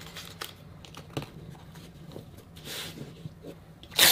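Masking tape being pulled from the roll and torn, with light taps and rustles of fingers pressing it onto a fabric-covered cardboard box. A short hiss of tape coming off the roll about two and a half seconds in, and a sharper rip near the end.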